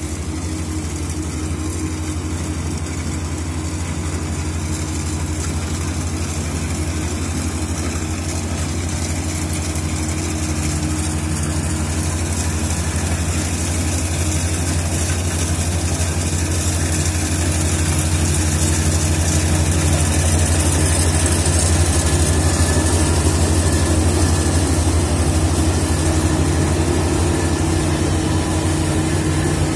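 Kubota rice combine harvester's diesel engine running steadily under load while it cuts and threshes rice, growing louder as it comes closer and loudest about two-thirds of the way through.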